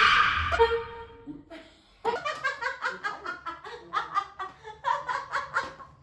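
An air horn blast cutting off about half a second in, followed a moment later by hearty laughter in quick, rhythmic bursts.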